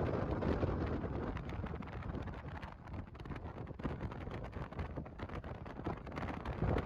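Wind buffeting the microphone: an uneven low rumble with scattered crackles.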